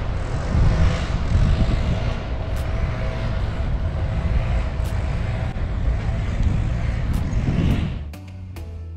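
Steady road-traffic rumble with a faint steady hum, loud and unbroken. It gives way to background music near the end.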